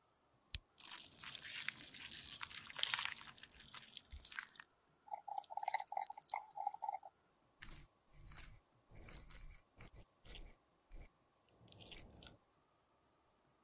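Close-miked wet crackling and squishing of thick foundation cream being stirred and worked into a cushion compact's sponge: a crackly stretch first, a brief squeaky run midway, then a series of short separate squishes.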